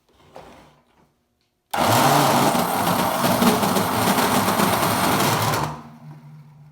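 Vacuum cleaner motor switched on, running loud for about four seconds, then switched off and winding down. The uploader puts the excessive noise down to a worn ball bearing inside the motor.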